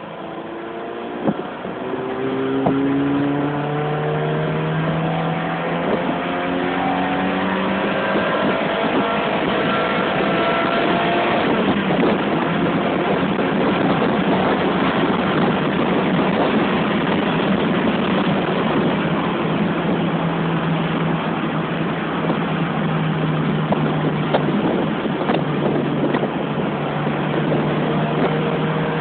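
Ferrari engine pulling hard under acceleration, from inside the open-roofed cabin. Its note rises for the first ten seconds or so, then settles into a steady loud rush of wind and road noise at high speed, with the engine running beneath.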